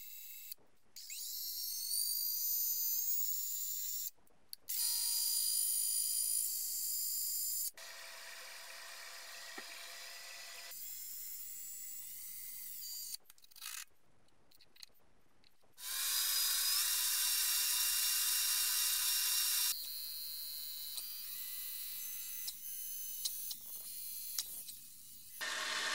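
Small metal lathe running, turning down a stainless steel bar with a cutting tool, with a high whine from the spindle drive. The whine rises in pitch about a second in, and the sound breaks off and resumes abruptly several times.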